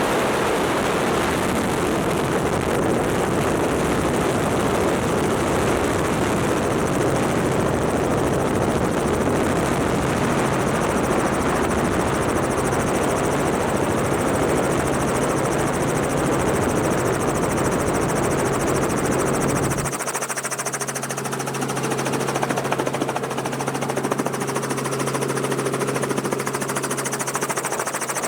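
Robinson R44 helicopter in flight with its doors removed: steady rotor and engine noise mixed with heavy wind rush. About twenty seconds in, the deep rumble drops away and a steady hum from the rotor and engine stands out more clearly.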